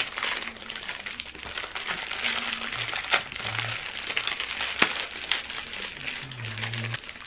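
Thin plastic wrappers on packaged toast slices crinkling as they are handled and pulled open: a continuous crackly rustle with a couple of sharp snaps.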